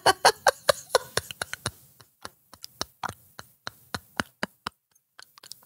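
A woman laughing in a quick run of 'ha-ha' pulses that fades out about two seconds in, followed by scattered short, quieter breathy bursts of stifled laughter.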